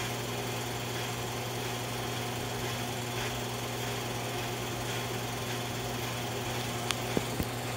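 Film projector running: a steady motor hum with the whirr of the film mechanism, and a few sharp clicks near the end.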